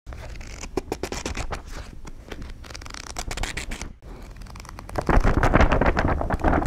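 Dense scratching and crackling noise made of many rapid clicks. It starts suddenly and gets louder about five seconds in.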